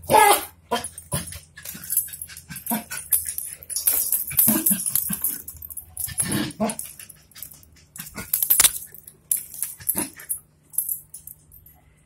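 Two dogs playing rough, with a few short dog whimpers and a metal link chain rattling and dragging on a tile floor in quick jangles. It goes quiet near the end.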